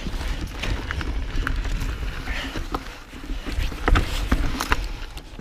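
2015 Santa Cruz Nomad mountain bike descending a rough dirt trail: a constant low rumble of tyres and mount vibration, with frequent sharp clicks and knocks as it rattles over roots and rocks.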